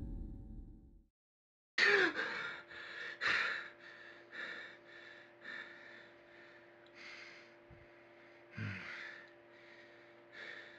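A young man gasping and breathing hard in short, uneven breaths, straining as if in pain, over a faint steady hum. A lingering musical tone fades out in the first second before the breathing starts.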